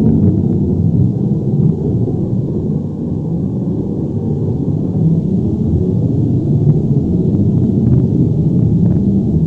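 Earthquake and avalanche rumble sound effect: a deep, steady rumble with faint scattered crackles, dipping slightly in loudness about three seconds in.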